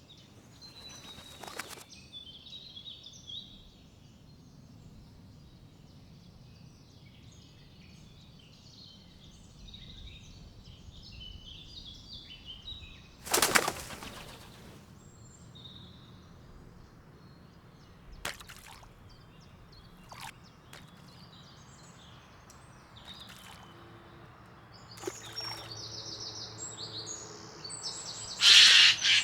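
Wild birds at a woodland spring: small birds chirping on and off, with several sudden bursts of wing flapping, the loudest about halfway through and two more near the end.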